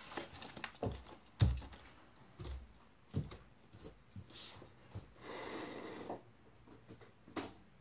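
Scattered knocks and thumps of a child moving about and handling things on the floor, the loudest about a second and a half in, with a short rustling noise around five seconds in.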